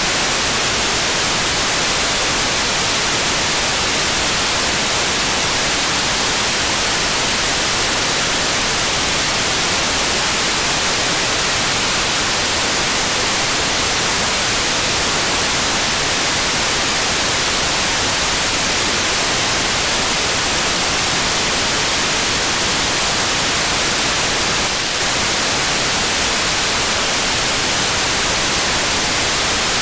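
Steady FM receiver static: the hiss of an RTL-SDR's FM-demodulated output tuned to 435.7 MHz, with no packet burst standing out from it.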